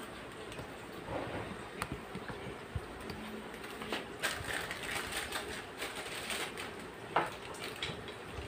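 Clear plastic piping bag crinkling and rustling as it is handled, with scattered small clicks and knocks; the rustling is busiest in the middle, with one sharper rustle about seven seconds in.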